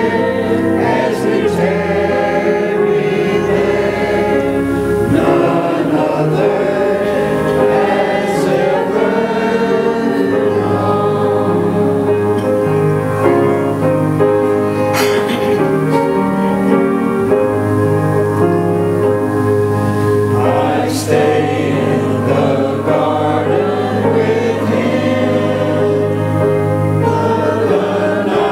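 Mixed choir of men's and women's voices singing a hymn together, with long sustained notes.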